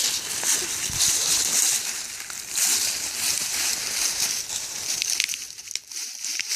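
Leafy branches rustling and crackling as a small tree is pulled and dragged, an uneven brushing noise that swells and fades with scattered snaps.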